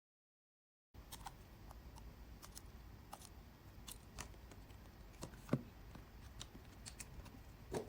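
Faint, scattered small clicks and taps of hand tools on the parts of an opened iPhone as the screen and battery are taken out, with one louder click about five and a half seconds in. The first second is dead silent.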